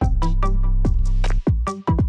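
Electronic background music with a steady beat over a deep bass.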